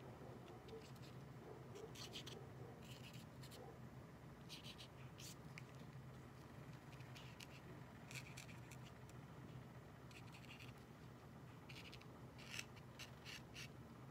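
Faint scratching of a Posca paint-pen tip on a painted surface, in short strokes that come in scattered groups, over a low steady room hum.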